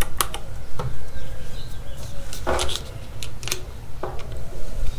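Sharp metal clicks and clinks of a socket adapter and socket being handled and snapped onto a cordless impact driver's hex chuck, with a short rattle about halfway through.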